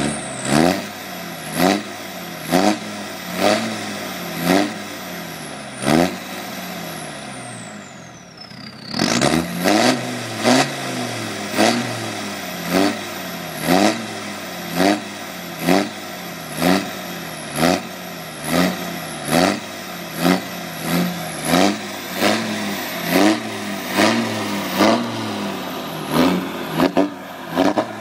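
Tuned-up Land Rover Defender 90 engine blipped over and over, the revs jumping up and falling back about once a second. About six seconds in it revs once and winds down slowly toward idle. The quick blips pick up again about three seconds later and carry on, a little faster near the end.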